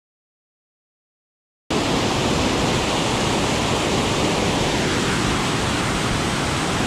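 Waterfall and the white-water stream below it rushing over rocks: a steady, loud rush of water that starts suddenly about a second and a half in, after dead silence.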